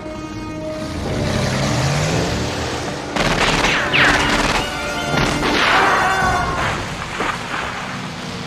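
Old-school kung fu film sound effects over music: falling whooshes and several booming impacts.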